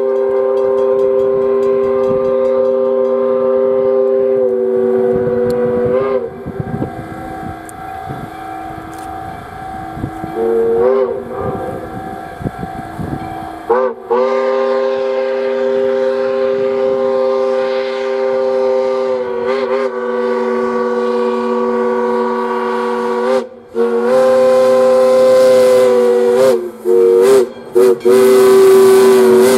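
Powell three-chime steam whistle on USSC steam locomotive 148 blowing for a grade crossing as the train approaches: several long chime blasts and, near the end, a few shorter ones, the pitch bending as each blast opens and closes.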